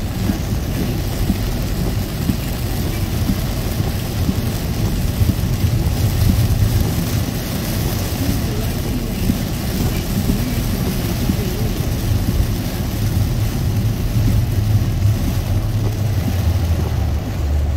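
Heavy rain pelting the windshield and roof of a moving car, as a steady loud hiss over the low rumble of the car and its tyres on the wet road.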